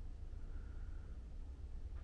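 Quiet room tone: a faint, uneven low rumble, with a faint high whine that swells and fades about halfway through.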